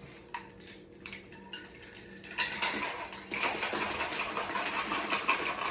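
A cocktail shaker packed with ice and margarita ingredients gives a few light clicks and knocks as it is handled. About two and a half seconds in, the shaking starts: a dense, continuous rattle of ice against the shaker.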